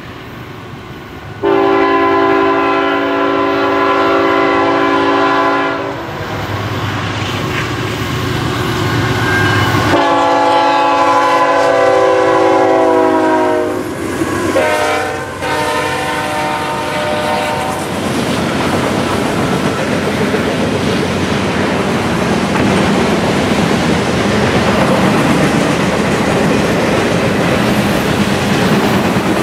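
Diesel freight locomotive's multi-chime air horn sounding two long blasts, a short one and a final long one, the grade-crossing warning pattern, its pitch sagging as the locomotive passes. After that, the autorack cars roll by with steady wheel rumble and clickety-clack on the rail joints.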